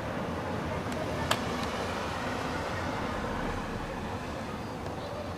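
Steady rumbling drone of a distant aircraft flying overhead, blended with background town noise, with one sharp click about a second in.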